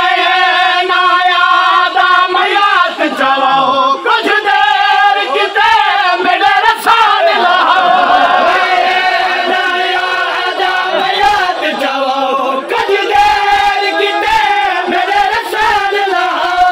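Men's voices chanting a noha, a Shia mourning lament, unaccompanied. Several voices sing together in long, wavering melodic lines with no pause.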